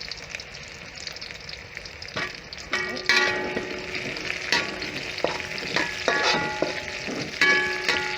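Sausages and garlic sizzling in hot oil in a frying pan. From about three seconds in, a utensil stirs them, knocking and scraping against the pan with short metallic rings.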